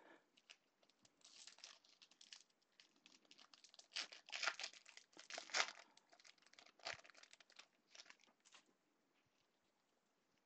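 Quiet crinkling and tearing of a foil baseball-card pack wrapper being ripped open by hand, in a run of crackly rustles that is busiest in the middle and stops near the end.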